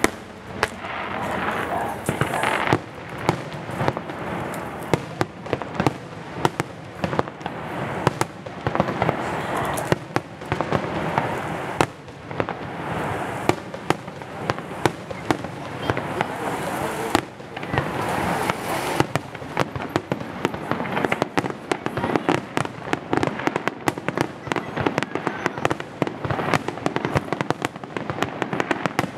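Aerial fireworks shells bursting overhead in a continuous barrage of bangs and crackles. The bursts come faster and more tightly packed in the last third.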